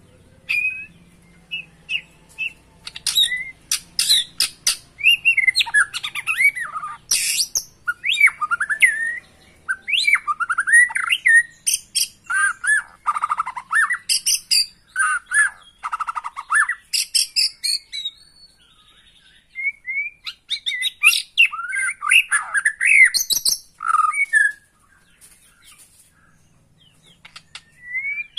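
White-rumped shama singing a loud, varied song of rapid whistled phrases that glide up and down in pitch, mixed with sharp chattering notes. It pauses twice in the second half.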